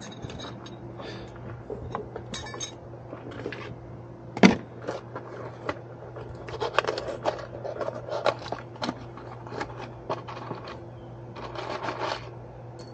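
A small cardboard box of loose screws being opened and handled: screws clinking and rattling against each other and the cardboard as they are picked out, with one louder knock about four and a half seconds in. A faint steady hum runs underneath.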